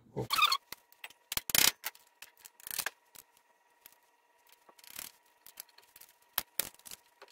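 Flat-blade screwdriver prying the inner gear out of an old Spicer locking hub: a scatter of sharp metal clicks and short scrapes as the blade works against the steel parts.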